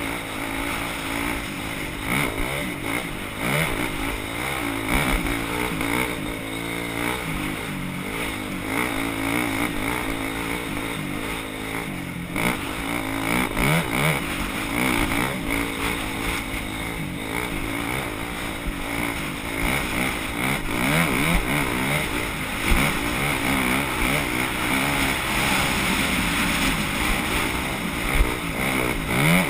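Dirt bike engine revving up and falling back over and over as it is ridden, with a steady rush of noise underneath.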